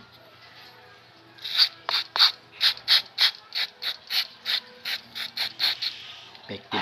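A quick run of about seventeen short, sharp mechanical clicks, about four a second, starting about a second and a half in and stopping near the end.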